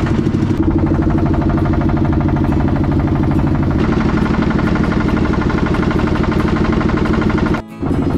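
A river boat's engine running with a steady, rapid chugging. It drops out briefly near the end.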